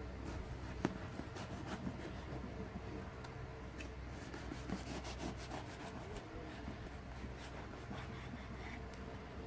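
A knife sawing down through the crust of a baguette, the crust crackling and rasping under the blade in many small cracks, with one sharper crack about a second in.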